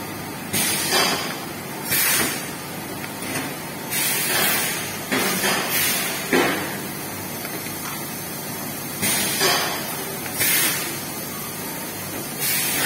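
A bottled-water capping and labelling line running, with short hisses like air blasts coming at uneven spacing, roughly every second or so, over a steady machine background.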